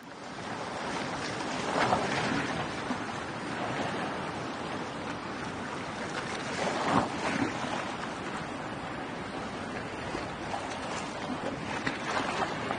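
Shallow surf churning and washing, a steady rush of water that surges louder about two seconds in, again near seven seconds and near the end.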